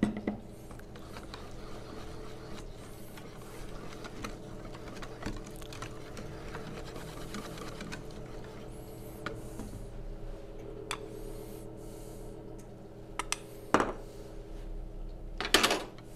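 Wire balloon whisk beating thin crepe batter in a stainless steel bowl, a steady rhythmic scraping and swishing, with two louder clinks of metal on the bowl near the end.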